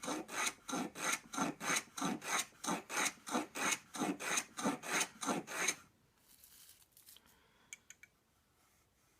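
Axminster Rider No. 60 1/2 low angle block plane, its factory blade unhoned, cutting a chamfer along the edge of a piece of wood in quick, short rasping strokes, about three a second. The strokes stop about six seconds in, leaving only a few faint clicks.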